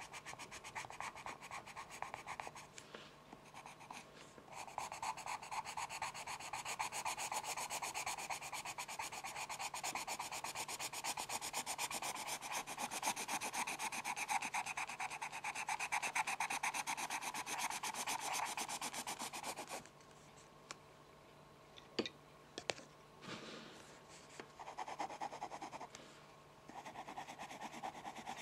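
Pencil scratching in fast back-and-forth strokes, a steady rasp that stops for several seconds near the end, broken by a few light taps, then starts again.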